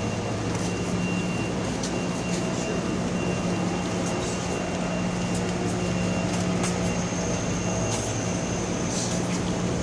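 Large industrial fans running in a huge hall: a steady low hum with a faint high whine, with scattered light clicks over it.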